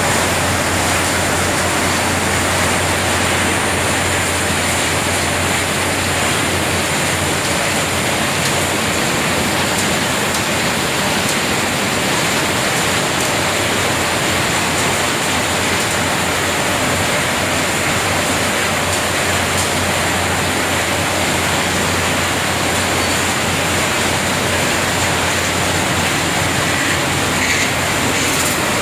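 Walnut huller machinery running: conveyors carrying walnuts and their electric motors make a steady, loud, even noise with a low hum beneath it.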